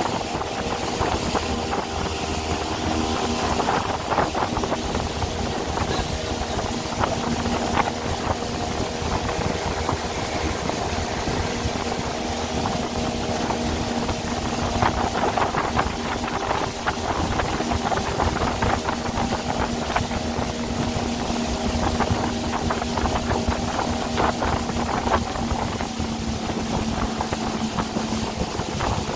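Fishing boat's engine running steadily at sea, a constant hum with many short knocks throughout.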